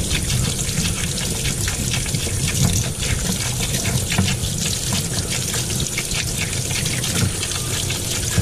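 Steady running water from a garden hose pouring over a cleaned blue crab held in the hands and splashing into a utility sink, rinsing out the crab's body cavity.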